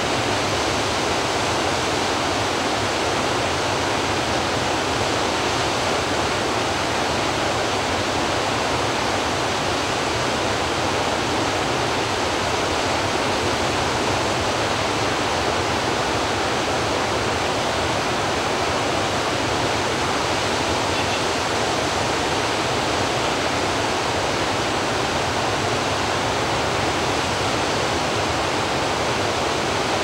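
A waterfall cascading down tiers of rock ledges, flowing steadily: an even, unbroken rush of water.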